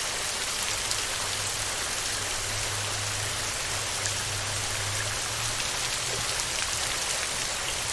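Steady heavy rain drumming on a metal roof, with fine individual drop ticks throughout. A low steady hum sits underneath for a few seconds in the middle.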